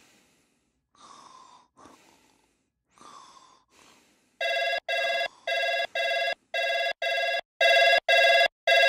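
A few faint breaths from a sleeper. About halfway through, an electronic alarm on the bedside device starts beeping: short, high-pitched electronic beeps in pairs, repeating steadily, which get louder near the end.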